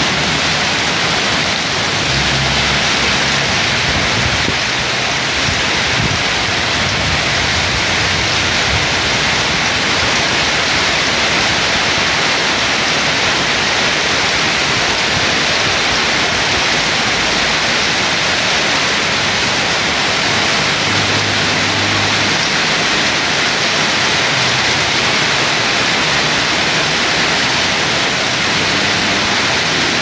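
Heavy rain falling in a steady, unbroken hiss, with brief low rumbles about two seconds in and again past the twenty-second mark.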